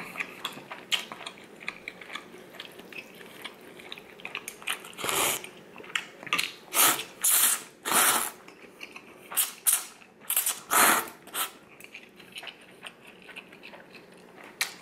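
A person blowing on and slurping ramen noodles off chopsticks: a run of short, airy blows and slurps through the middle stretch, with quieter chewing and small clicks around them.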